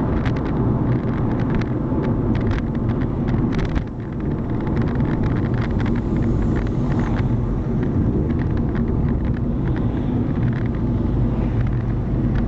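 Steady engine and road rumble from a car being driven, with frequent small clicks or rattles on top. The level dips briefly about four seconds in.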